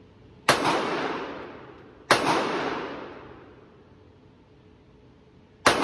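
Three gunshots at an indoor shooting range: one about half a second in, one about two seconds in, and one near the end. Each shot rings out in a long echoing tail off the range walls.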